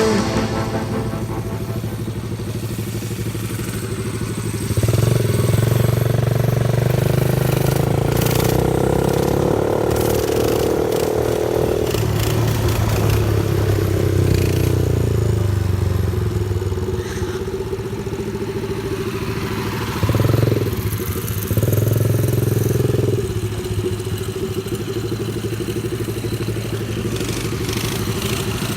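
Small single-cylinder mini bike engine running, revved up about five seconds in and held for several seconds, then eased off, with two short bursts of throttle later before settling back to a steady idle.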